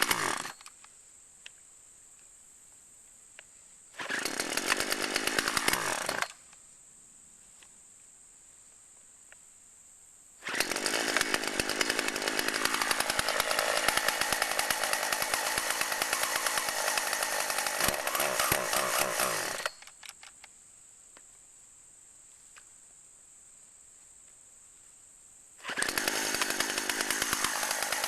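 Two-stroke chainsaw running in separate bursts with quiet stretches between: a run that ends just after the start, a short one a few seconds in, a long one in the middle whose pitch drops partway through, and another near the end. It is running on years-old stored two-stroke fuel mix blended with fresh alcohol-free gas.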